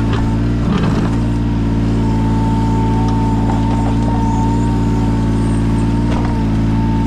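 Yanmar mini excavator's diesel engine running steadily, with a steady high whine that comes in about two seconds in and a few short knocks.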